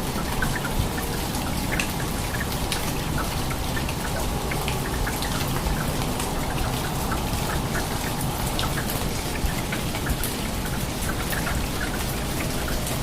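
Heavy rain falling steadily, with many separate drops ticking on hard surfaces over a constant hiss.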